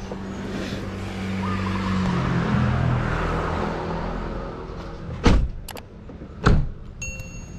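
Vehicle engine running, its pitch dropping as it slows, then two loud thumps about a second apart and a short high electronic beep near the end.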